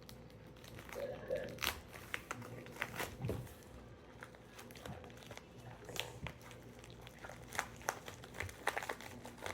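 Packaging being worked open by hand: irregular crinkling and rustling with small crackles and tearing sounds.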